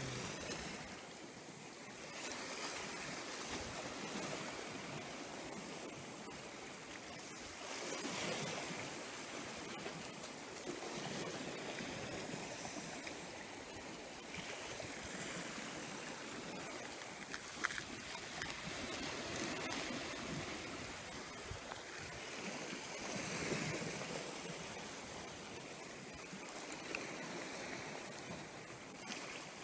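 Sea waves washing against a breakwater: a steady rushing wash that swells every few seconds. One short sharp click sounds a little past halfway.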